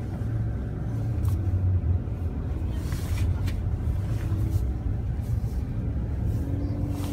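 Car interior road noise: a steady low rumble of the engine and tyres heard from inside the cabin while driving on a snow-covered road, with a couple of faint clicks about three seconds in.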